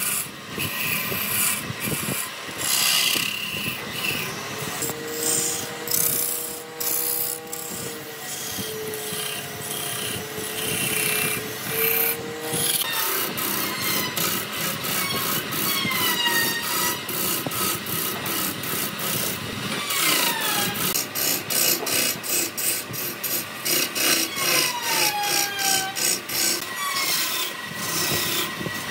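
Turning tool cutting into wood spinning on a lathe: a steady rasping scrape with fine rapid chatter. A held squealing tone sounds for several seconds, and later several short squeals slide downward in pitch.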